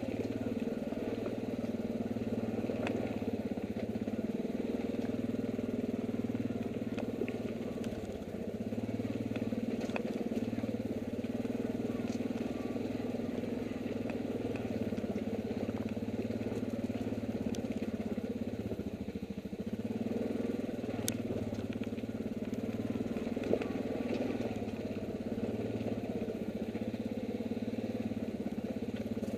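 ATV engine running steadily as the quad crawls down a rocky trail, its pitch sagging briefly a few times. A few sharp clicks are heard over it.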